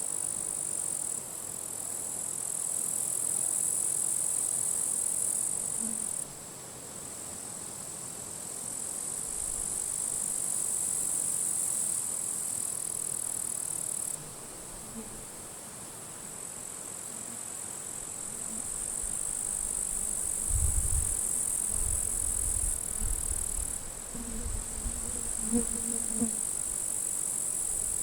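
Grasshoppers stridulating in dry grass: a continuous high-pitched buzzing chorus that steps louder and softer every few seconds as individual insects start and stop. Gusts of wind bring a low rumble, mostly in the second half.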